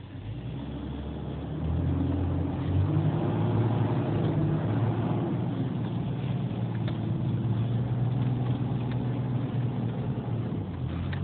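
Jeep engine pulling away: it picks up about two seconds in, then runs steadily under load.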